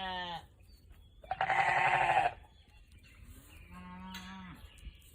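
Belted Galloway cattle mooing: three drawn-out calls of about a second each. One ends just after the start, a louder, rougher one comes about a second and a half in, and a fainter one follows near four seconds.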